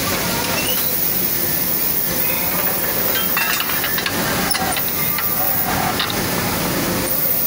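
Steady hiss of compressed air and machine noise from a pneumatic sand-moulding (ramming) machine as its lever is worked to lift the rammed moulding box off the pattern, with a few short clanks partway through.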